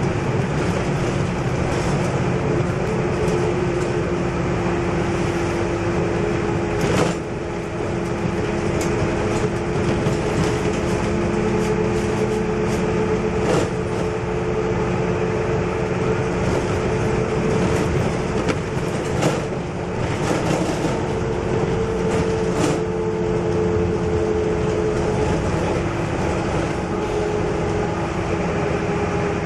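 Inside a MAN NL222 low-floor city bus under way: its rear-mounted six-cylinder diesel and drivetrain run with a steady two-tone hum over road noise. A few sharp knocks come through, at irregular intervals.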